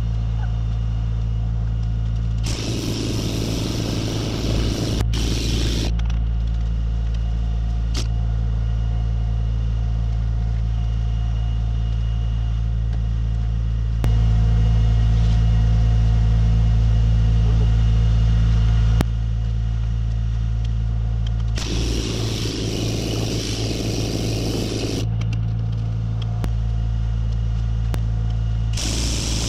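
Pneumatic tamper hammering rammed-earth mix into a test cylinder in bursts of a few seconds: about two seconds in, about 22 seconds in, and again just before the end. Under it runs the steady low hum of an engine-driven air compressor, which gets louder for about five seconds midway.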